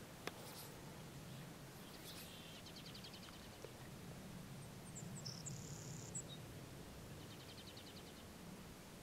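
Outdoor birdsong: a fast trill of evenly spaced notes about two and a half seconds in and again near the end, with a few high chirps and a held high note around five seconds. Underneath is a low, steady background noise, and a single sharp click comes right at the start.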